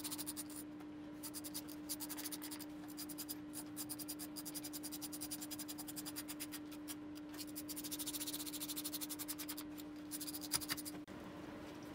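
Hand ratchet clicking in quick runs as the engine cover bolts are run down and nipped up, over a steady hum that stops about eleven seconds in.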